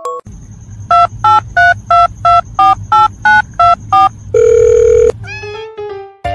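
Touch-tone telephone keypad dialing: ten short two-note beeps, about three a second, followed by a longer, lower buzzing tone lasting about a second. A few short musical notes come in near the end.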